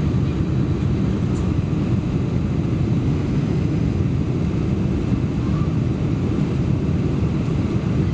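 Cabin noise inside a Boeing 747-400 on approach with flaps extended: a steady, even, low rush of engine and airflow noise with no distinct events.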